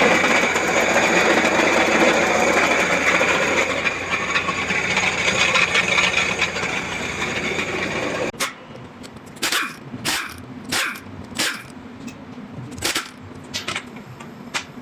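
Renault Trafic 2.5 dCi diesel engine running with a loud metallic rattle, the sign of a failing crankshaft pulley (harmonic balancer). About eight seconds in it drops sharply, and then comes a series of short, separate bursts of sound.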